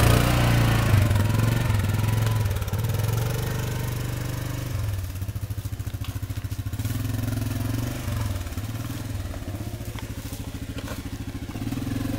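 Yamaha Grizzly 550 ATV's single-cylinder four-stroke engine running under load on a dirt trail. It is loudest in the first couple of seconds, then drops back, and its pitch rises and falls as the throttle changes.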